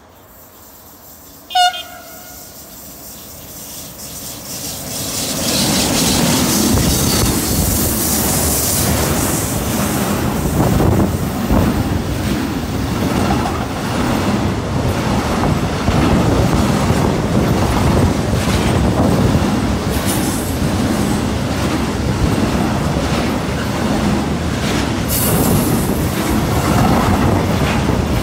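A locomotive sounds one short horn blast about a second and a half in. Then a container freight train rumbles in and passes close by, its wheels clattering over the rails, getting louder for a few seconds and then staying loud and steady as the wagons go by.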